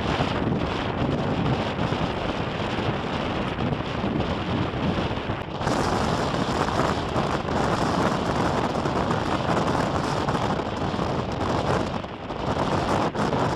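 Storm wind blowing hard and buffeting the microphone, rising to a heavier gust from about six seconds in and easing near the end.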